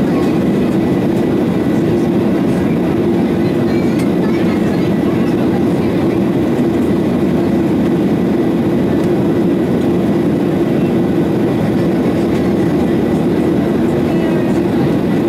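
Steady, loud cabin noise inside a Boeing 737-800 in flight: a low rumble of its CFM56-7B engines and airflow, heard through the cabin, holding even.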